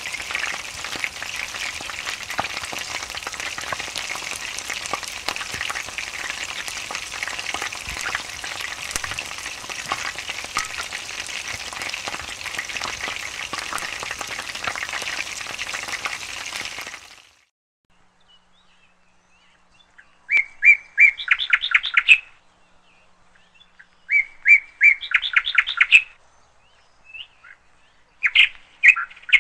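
Chicken pieces frying and crackling in a pan while being stirred with a wooden spatula; the sizzle cuts off suddenly about 17 seconds in. After a short hush, a bird chirps in three quick runs of rapid notes.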